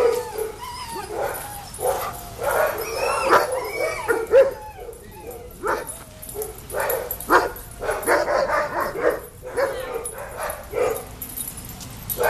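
Small dog, a Cockapoo, barking and yelping in quick runs of short, pitch-bending calls, with a couple of brief pauses.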